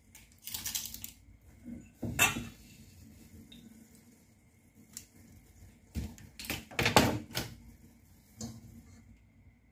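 Scattered clicks, knocks and light clatter of kitchen items being handled at the counter: a small glass jar and a ring of plastic measuring spoons. The loudest knock comes about two seconds in, and a quick run of knocks follows around seven seconds in.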